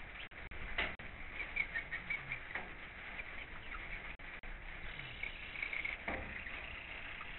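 Rain pattering steadily on a chicken coop, with the hens' short, high, soft chirps coming on and off and a few sharp taps.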